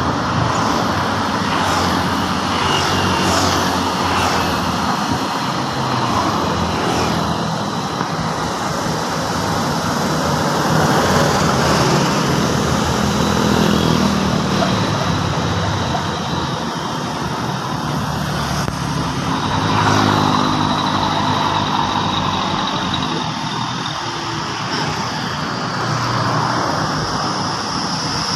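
Komatsu bulldozer's diesel engine running, its pitch rising and falling with load, with metallic clanks in the first few seconds and a faint high squeal.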